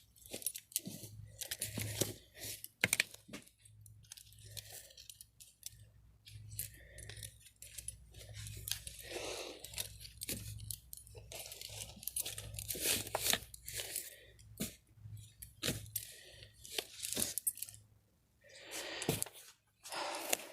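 Merchandise and packaging being handled and moved about on store shelves: irregular rustling, crinkling and sharp clicks, over a low steady hum.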